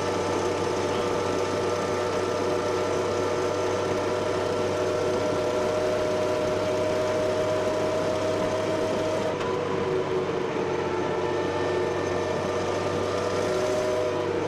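Daimler Ferret scout car's Rolls-Royce B60 straight-six petrol engine and drivetrain running steadily under way, with a steady whine that changes pitch about nine seconds in.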